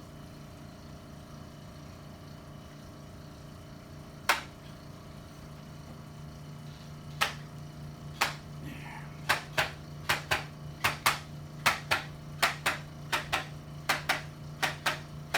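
Sharp clicks over a steady low hum: one about four seconds in, two more a second apart, then a quickening run of about two to three clicks a second.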